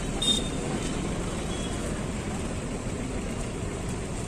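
Steady traffic noise of a busy city street, with a short high-pitched sound just after the start.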